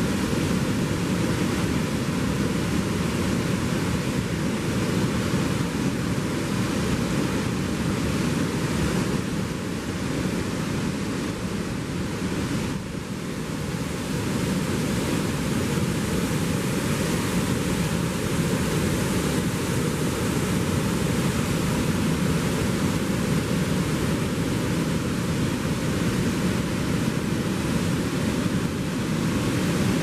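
Steady rush of water pouring over a hydroelectric dam's spillway gates and churning in the river below, briefly a little quieter about 13 seconds in.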